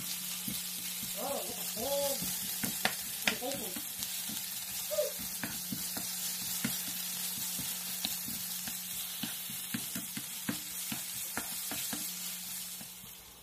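Garlic and onion sizzling in a nonstick frying pan while a wooden spatula stirs them, with many small clicks and scrapes of the spatula against the pan.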